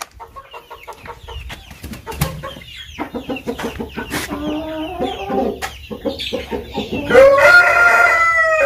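Chickens clucking, with many short calls overlapping. About seven seconds in, a rooster gives one long, loud crow that rises and then holds.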